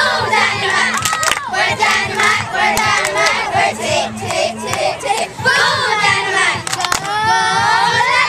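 A group of young girls chanting a cheer together in a steady rhythm, with a few hand claps. Near the end they break into overlapping high-pitched shouts and screams.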